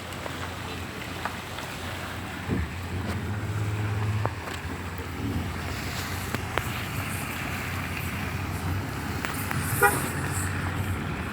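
A motor vehicle's engine running close by, with a short horn toot about ten seconds in.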